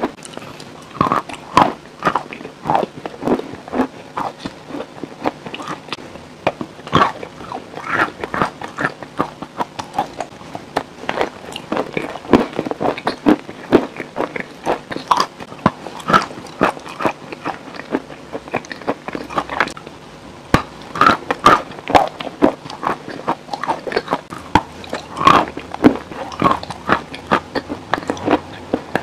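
Close-miked eating sounds: a person biting and chewing, with dense sharp crackling clicks throughout.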